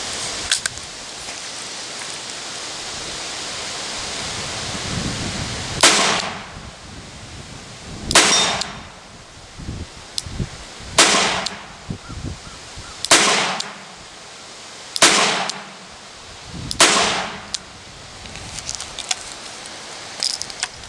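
Six shots fired double action from a 1940 Colt Police Positive Target .22 Long Rifle revolver, about two seconds apart, each ringing out briefly. Light metallic clicks follow near the end as the cylinder is swung open.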